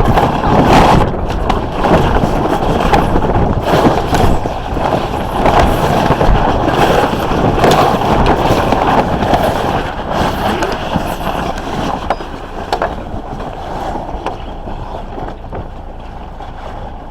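Wind buffeting the microphone aboard a sailing smack, with sail canvas flapping and irregular slaps as the boat heads up into the wind. It eases somewhat over the last few seconds.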